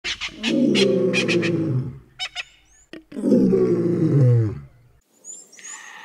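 Two long, deep animal roars, the second falling in pitch at its end, then a sudden cut-off about five seconds in. Faint high chirps of small birds follow near the end.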